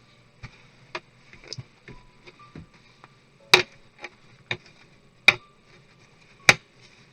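Irregular sharp clicks and taps of parts and tools being handled while a laptop is taken apart, about a dozen in all. The loudest three come about three and a half, five and a quarter, and six and a half seconds in.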